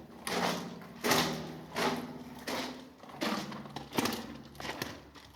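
A run of sharp knocks or steps, roughly one every 0.7 seconds, each ringing on in a long, booming echo inside the round chamber of an old water tank converted into a sound chapel.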